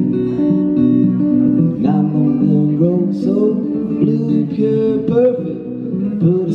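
Acoustic guitar strummed and picked through a song, with a man singing along in places.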